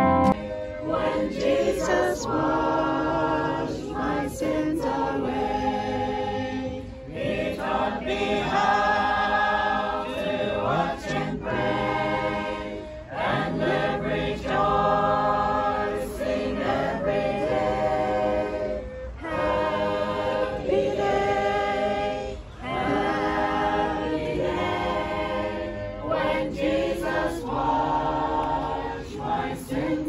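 A group of voices singing a worship hymn together in sustained phrases, pausing briefly between lines.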